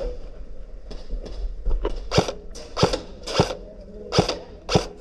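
Airsoft rifle firing five sharp single shots in the second half, about half a second apart.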